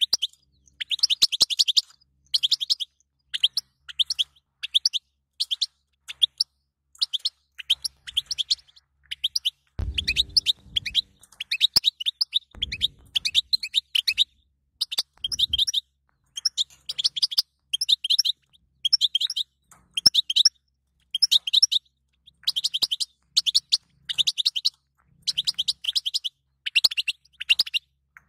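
European goldfinch twittering: quick, high chirps run together in short phrases with brief pauses between them.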